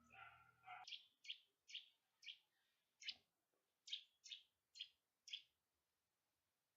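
A small bird calling: about nine short, high chirps, each sweeping down in pitch, spaced roughly half a second apart over four to five seconds. Just under a second in, a pitched whine cuts off before the chirps begin.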